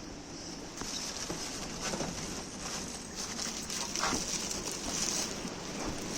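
Kittens playing in cardboard boxes and with toys: a few light taps and scrabbling pats over a steady high hiss.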